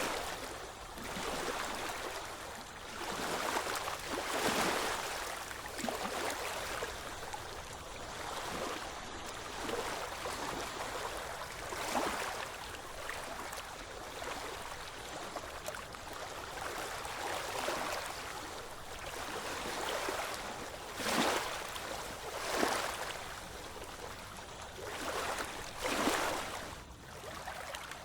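Ocean surf: waves breaking and washing in as a continuous rush, swelling with each breaker, the loudest about four, twelve, twenty-one and twenty-six seconds in.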